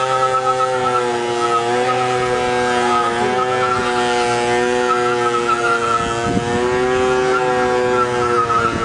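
Motorcycle engine held at steady high revs, its pitch sagging slightly a couple of times.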